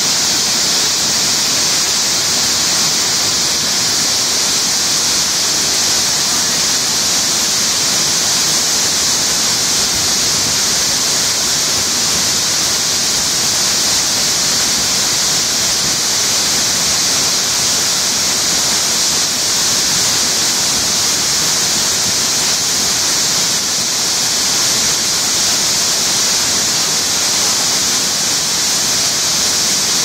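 Waterfall pouring into its plunge pool close by: a loud, steady, even rush of water that doesn't change.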